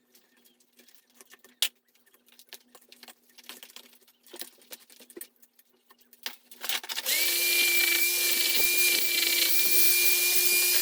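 Handheld stone-cutting saw started about seven seconds in, running at steady speed with a high whine over a loud grinding noise as it cuts into the stone fireplace. Before it starts there are only faint scattered clicks and taps.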